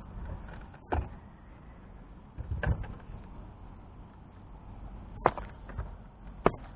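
A handful of sharp knocks and clatters as gear is handled at a car's open boot, over a low steady rumble.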